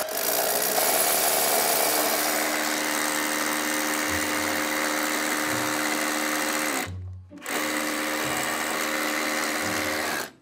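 DeWalt cordless drill running steadily with a long bit, boring up through the ceiling into the ceiling void. It stops briefly about seven seconds in, starts again and cuts off near the end. Background music with a steady beat plays under it.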